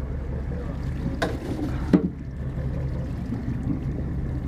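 Steady low drone of a boat's diesel engine idling, with two short knocks about one and two seconds in.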